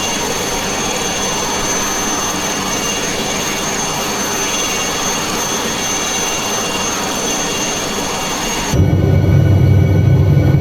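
Bell 47 helicopter running steadily: a loud noise with a thin high whine over it. Near the end it cuts abruptly to a louder, deeper rumble.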